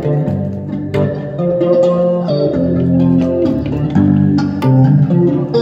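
Electric guitar played through a small combo amplifier: held notes and chords changing every half second to a second, with an occasional sharp pick attack.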